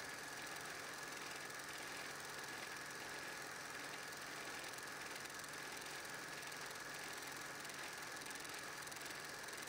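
Steady mechanical running noise with hiss, a constant high whine and a low hum, unchanging throughout. This is the noise of transferring and playing back a silent 8mm home movie, which has no sound of its own.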